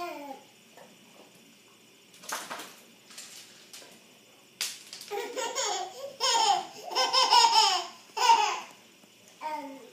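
A toddler laughing and squealing in short bursts, loudest and most continuous from about five to eight and a half seconds in, with high falling giggles.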